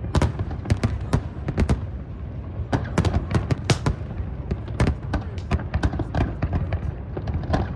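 Large fireworks display: a dense, irregular run of sharp bangs and crackles, several a second, over a low rumble.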